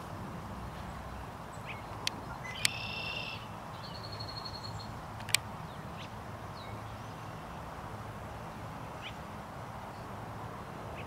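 Outdoor ambience with birds calling: a short, several-toned call about three seconds in and a rapid high trill about a second later. A few sharp clicks are heard too, the loudest about five seconds in.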